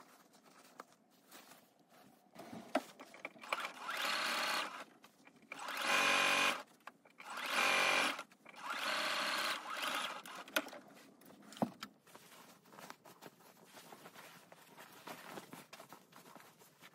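Domestic sewing machine stitching a seam in four short runs of about a second each, with fabric handling and a few clicks around them.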